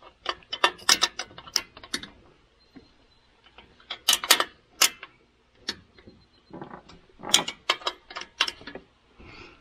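Sharp metallic clicks and taps from hand tools and bolt hardware being worked on the solar panel mounting. They come in three bursts of a few clicks a second: at the start, about four seconds in, and again about seven seconds in.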